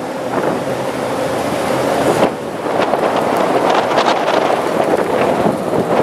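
Wind buffeting the microphone from a moving vehicle on the road, over the vehicle's running engine. The buffeting grows louder about two seconds in, with brief crackles.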